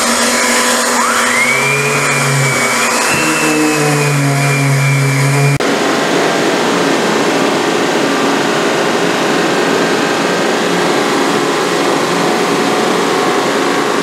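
DeWalt random orbit sander with a vacuum hooked to its dust port, spinning up with a rising whine and then running steadily. A little past five seconds the sound cuts abruptly to a different steady machine noise.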